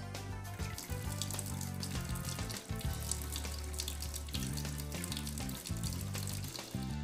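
Water running from a sink tap over organza fabric held in an embroidery hoop, rinsed by hand to wash out water-erasable marking pen. The running water stops near the end, and background music plays throughout.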